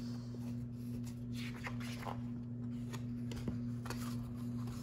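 Pages of a hardcover picture book being turned by hand: light paper rustling and brushing in short scattered bursts, over a steady low hum.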